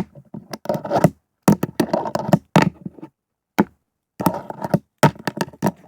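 Wooden fingerboard being tapped and knocked against a hard surface: irregular clusters of quick clacks and taps, with short gaps between them.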